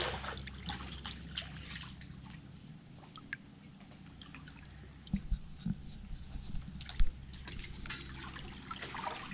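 Pool water sloshing and trickling around a three-week-old puppy as it paddles, with small drips and splashes and a few dull knocks, the loudest about seven seconds in.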